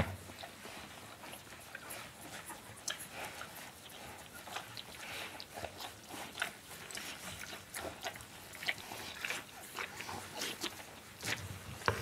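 Bernese Mountain Dog mother licking and nuzzling her newborn puppies: a run of short wet licking clicks and smacks, with the puppies' small grunts and squeaks among them.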